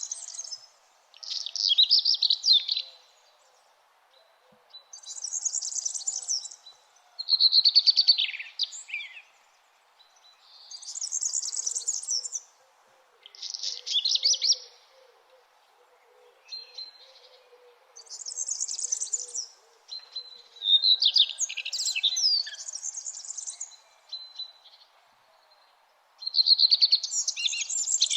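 A songbird singing at dawn in short, high chirping phrases, each about a second long and repeated every two to three seconds, the phrases alternating between higher and slightly lower patterns. A faint steady high note and low background noise fill the gaps.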